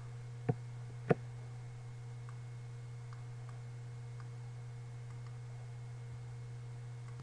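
Steady electrical hum under two sharp clicks of computer input, about half a second apart, near the start, followed by a few faint ticks as a class name is typed and a dialog clicked through.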